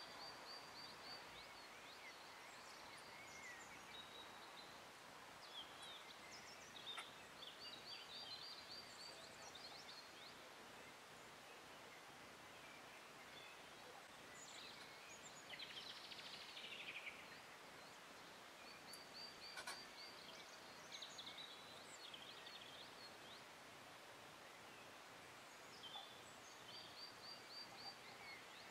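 Faint outdoor ambience with small songbirds singing: a short, quick, high trill repeated several times, with scattered chirps between.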